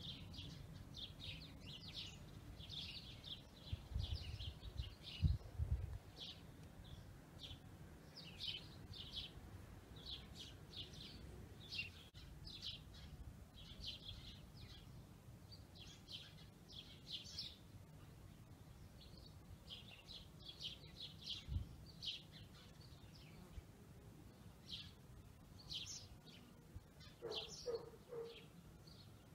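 Small birds chirping over and over in the background, faint. A few dull low thumps come about four to six seconds in, the loudest of them near five seconds, and another comes about twenty-one seconds in.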